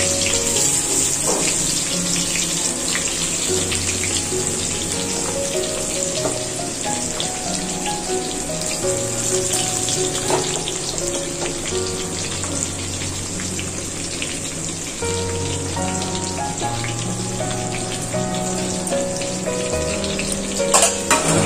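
Sliced onions sizzling and crackling as they fry in hot mustard oil in a steel wok, with background music playing under it.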